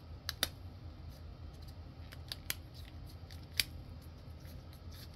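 A handful of sharp, light clicks and snips as heat shrink tubing is handled and worked onto an RC boat ESC's connectors, the loudest about three and a half seconds in, over a low steady hum.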